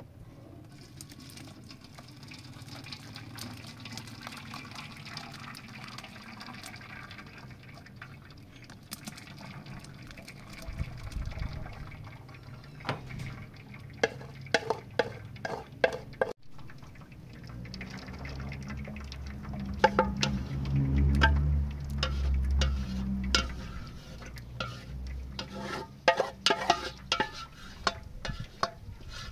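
Thick fruit pulp sliding and splatting from a metal pot into a plastic colander, with a wooden spoon scraping and knocking against the pot in quick runs. The heaviest, loudest slop of pulp comes about two-thirds of the way through.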